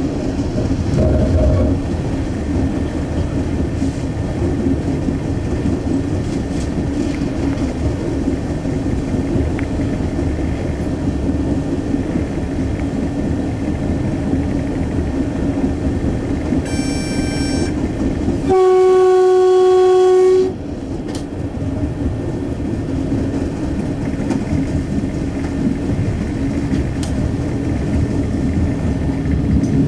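Adelaide suburban diesel railcar running along the track, a steady rumble of engine and wheels heard from the cab end. About two-thirds of the way in it gives one loud horn blast lasting about two seconds, with a brief fainter high tone just before it.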